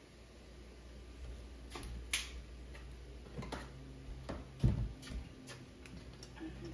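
Scattered light clicks and taps of kitchen utensils and cookware being handled, with a heavier thump just under five seconds in, over a steady low hum.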